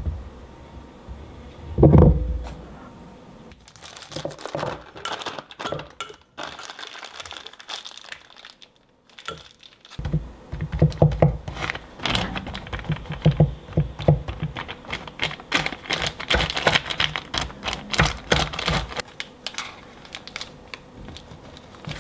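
Plastic piping bag crinkling and rustling as it is handled and a plastic scraper pushes choux dough down toward the tip. There is a loud thump about two seconds in, and a run of soft knocks against a wooden cutting board in the middle stretch.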